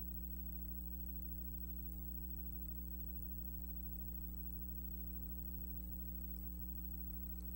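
Steady low electrical hum with a thin high-pitched whine over faint hiss, unchanging throughout. It is mains hum from the recording or transfer, not sound from the game.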